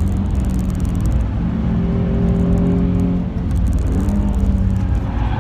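Nissan 350Z's 3.5-litre V6 heard from inside the cabin, pulling on track over a heavy rumble of road and tyre noise. The engine note holds steady, drops away briefly a little past three seconds in, then picks up again.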